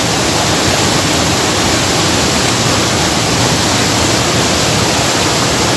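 Waterfall: whitewater pouring and churning among boulders, a loud, steady rush of water.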